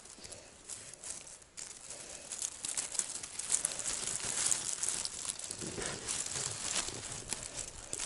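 Continuous rustling and crinkling, with many small clicks and cracks, of willow poles and brush being handled while a hunting blind's frame is tied together.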